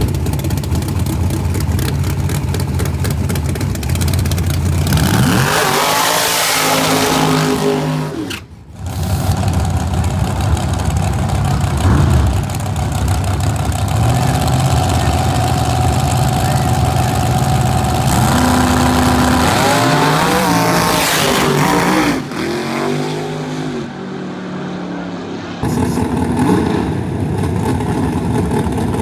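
Drag-racing truck engines idling loud and rough, then twice revving up hard in a long rising pull at full throttle. The sound cuts off abruptly between clips.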